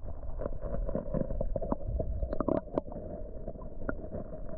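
Creek water heard through an underwater camera housing: a muffled, dull rushing with many irregular small clicks and knocks, the sharpest of them a little past halfway.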